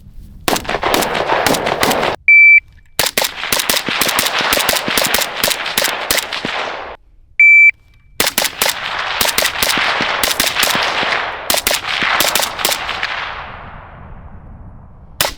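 Rapid strings of gunfire from firearms at an outdoor range, broken twice by the short electronic start beep of a PACT Club Timer III shot timer. A last single shot comes near the end.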